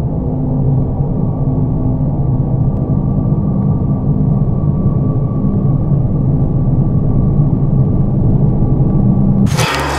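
Horror-score drone: a steady, loud low rumble with a faint high held tone above it, cut off by a sudden loud hit, a stinger, about nine and a half seconds in.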